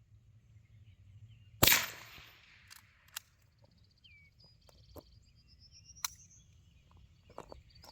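A single sharp .22 rifle shot about a second and a half in, the loudest sound. Fainter clicks follow, then a much quieter sharp crack about six seconds in.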